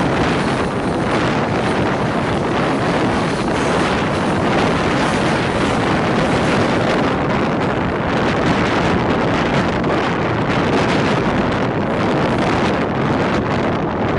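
Steady rush of a passenger train running at speed, with wind buffeting the microphone.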